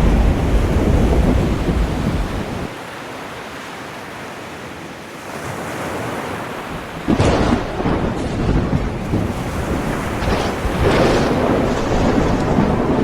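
Ocean surf and wind buffeting the microphone. A deep rumble fills the first few seconds, then drops suddenly to a quieter wash of water. About seven seconds in, waves break loudly, with more crashes a few seconds later.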